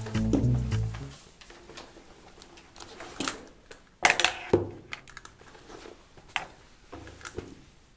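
Rummaging in a canvas tote bag and setting a notebook and pen down on a desk: rustling with scattered light knocks and clicks, the loudest about four seconds in. A plucked-guitar music cue ends about a second in.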